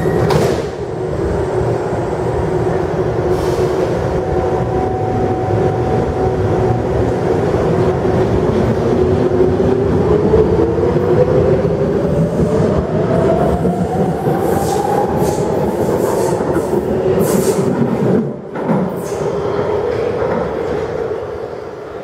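Vienna U-Bahn train pulling out of an underground station: a steady rumble of wheels on rail, with a motor whine that rises steadily in pitch as the train gathers speed. The sound fades near the end as the train leaves.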